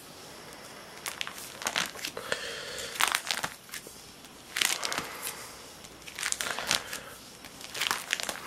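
Plastic sleeve pages of a trading-card binder crinkling as they are turned and handled, in a series of short rustles about once a second or so.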